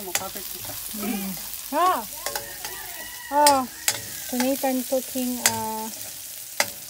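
Chopped vegetables sizzling in oil in a stainless steel wok, stirred with a metal spatula that clicks sharply against the pan several times. Several short pitched squeals that rise and fall in pitch sound over the frying; the loudest comes about three and a half seconds in.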